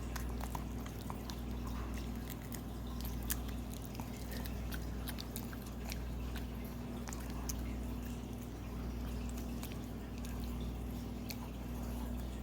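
A puppy chewing a raw carrot: irregular crunches and crisp clicks over a steady low hum.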